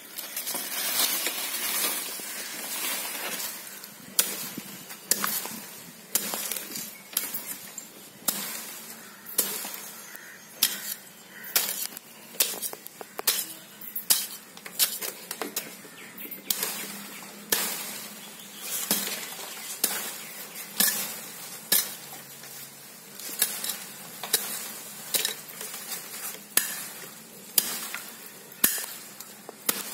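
A metal hand tool scraping and chopping into the soil and matted roots of a palm's root ball, in repeated gritty strokes about one a second. It is cutting away the old roots and soil from the base of the root ball.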